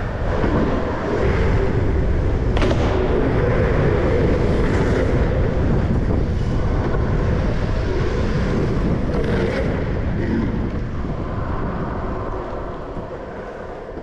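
Steady rushing of wind on the microphone and longboard wheels rolling on asphalt during a run at speed, with a couple of short sharp clicks, fading over the last few seconds.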